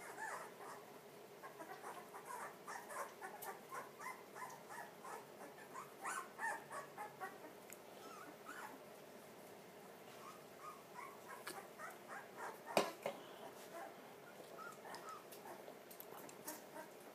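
Blue pit bull puppies whimpering and squeaking faintly in many short, high cries, with one sharp knock about thirteen seconds in.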